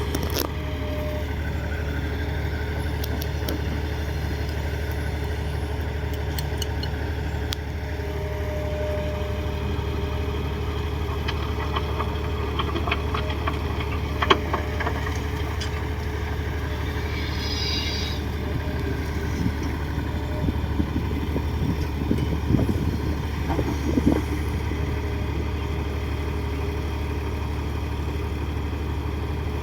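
Komatsu D58 crawler bulldozer's diesel engine running steadily, with scattered short metallic clanks and knocks about halfway through and again a little later.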